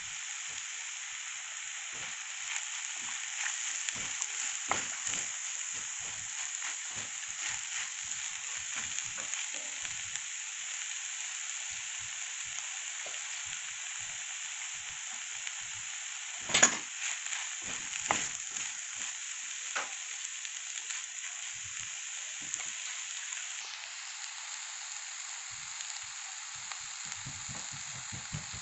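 Bitter melon (ampalaya) and scrambled egg frying in a nonstick pan, a steady sizzle throughout. Scattered clicks and taps of a silicone spatula stirring against the pan come through it, with one louder knock a little past halfway.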